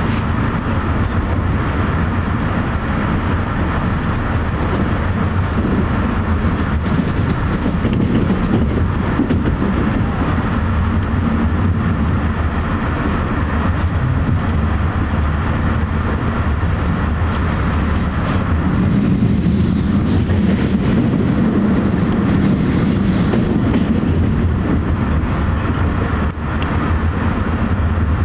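Amtrak Hiawatha passenger car in motion, heard from inside the coach: a steady, loud running rumble of the train on the rails, with a few faint clicks.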